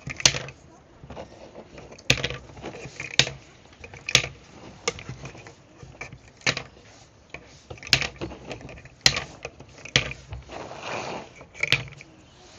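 Sharp plastic clicks of game discs being dropped into a four-in-a-row grid, about ten of them at irregular intervals of roughly a second.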